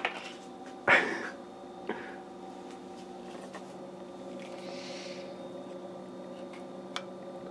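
Peanut butter being spooned from a plastic jar into a mixing bowl: a short scrape about a second in, a soft rasp around the middle and a few faint clicks of the spoon, over a steady low hum.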